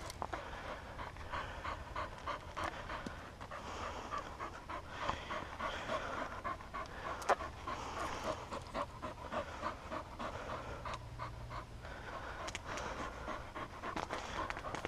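Hunting dog panting fast and steadily close to the microphone, with brush crackling and a sharp click about halfway through.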